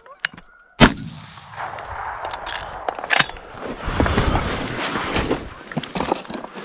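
Shotgun fired once about a second in, a single sharp blast that rings out briefly, at Canada geese coming into the decoys. A shorter, quieter crack follows about two seconds later.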